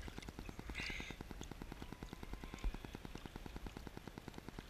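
Small waves lapping against a stand-up paddle board, with a short splash about a second in, over a fast, even low ticking.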